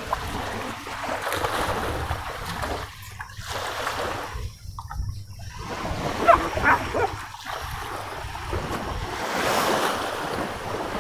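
River water washing and lapping at the bank, with wind rumbling on the microphone.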